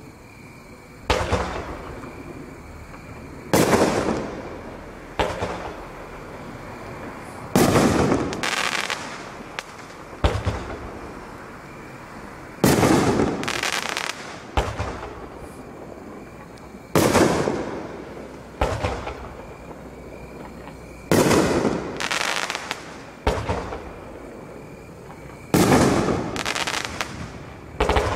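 Aerial firework shells fired one after another, about every four to five seconds. Each launches with a lighter thump and bursts about two and a half seconds later with a louder bang that rolls away in a long echo. The last launch comes right at the end.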